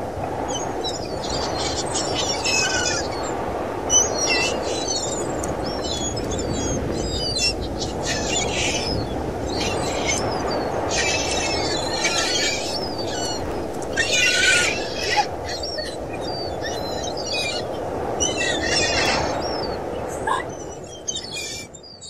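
A flock of gulls calling overhead, bursts of high cries coming every few seconds over a steady low rushing noise. The sound fades out near the end.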